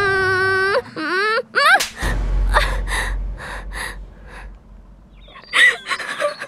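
A baby crying: a long high wail that breaks into short rising cries, then a run of quick breathy gasps about three a second over a low rumble, with the crying starting again near the end.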